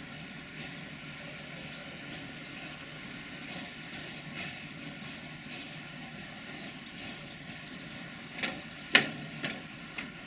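Irish Rail 29000 Class diesel multiple unit creeping along at low speed, its engines running steadily. Near the end come a few sharp knocks, the loudest about nine seconds in.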